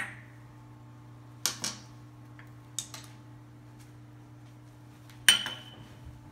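Measuring spoons and kitchen utensils clinking against a glass mixing bowl and dishes: a handful of sharp clinks, the loudest about five seconds in with a short ring.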